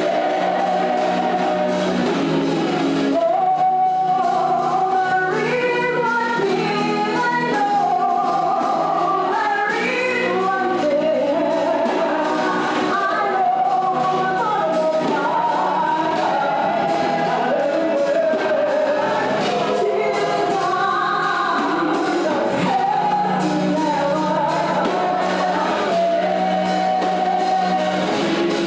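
Music with choral singing, in the style of gospel music, over sustained chords.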